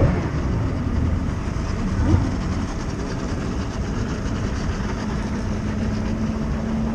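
Outboard motors of bass boats idling and running at slow speed, a steady low rumble, with a steady engine hum coming in about five seconds in.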